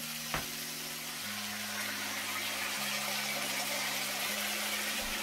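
Chicken-boiling broth being poured into a hot pan of seasoned chicken, giving a steady soft hiss, with one light click about half a second in.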